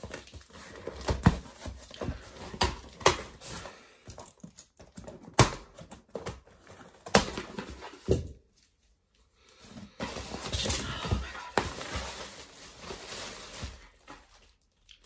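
A parcel being unpacked by hand: cardboard and packaging knocked and handled in a string of sharp knocks and clatters, a short pause, then a few seconds of rustling and scraping.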